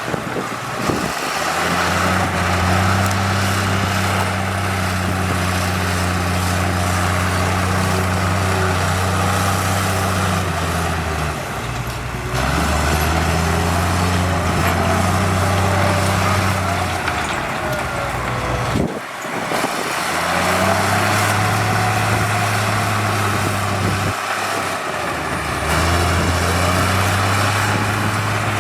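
Heavy diesel construction machinery running with a steady, low engine note. The sound changes abruptly a few times, as if from one machine to another.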